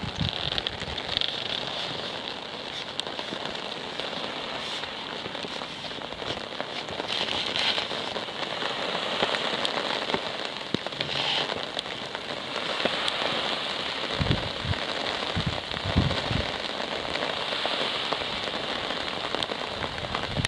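Steady rain falling, an even hiss with many small drops ticking close by. A few brief low thumps come about two-thirds of the way through.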